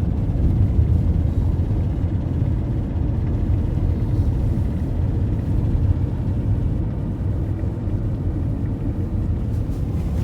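Steady low rumble of a motor vehicle driving, engine and road noise with no sharp events.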